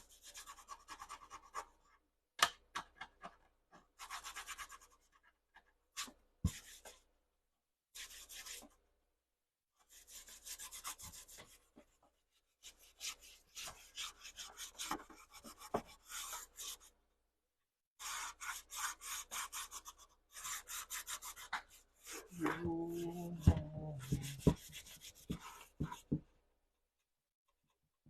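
Rapid rubbing strokes on the cabinet of a Bose center channel speaker, coming in bursts of a second or two with short pauses. A brief low-pitched sound comes about three-quarters of the way through.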